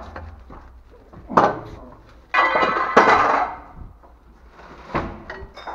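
Knocks and clatter of hard objects being handled, with a louder, harsher noisy stretch lasting about a second, a little over two seconds in.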